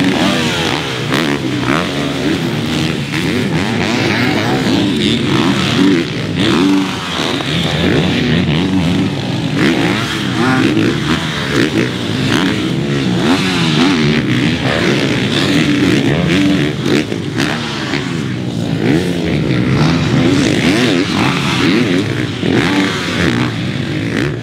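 KTM 450 SX-F motocross bike's single-cylinder four-stroke engine, ridden hard: it revs up and shuts off again and again, its pitch rising and falling in repeated waves.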